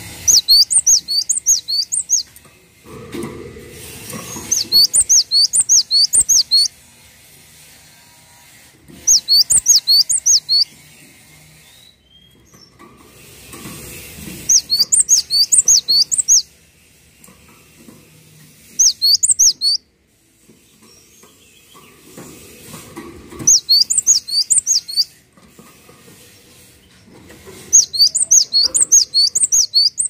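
Cinereous tit (gelatik batu) singing in loud bursts of rapid, high, repeated whistled notes, about half a dozen notes to a burst, seven bursts coming every four to five seconds.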